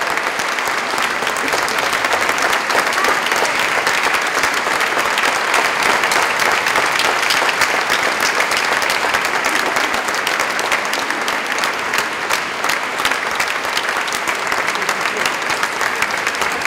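Sustained applause from a crowd, many hands clapping steadily; it swells a little in the first half and then eases slightly.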